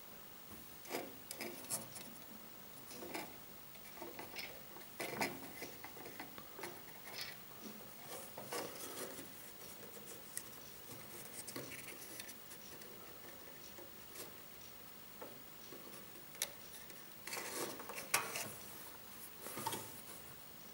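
Irregular metal clicks, taps and rattles of a wire-mesh live-catch mouse trap being handled and set: the spring-loaded door wire pulled back and hooked onto the trigger. The clicks come thickest near the end.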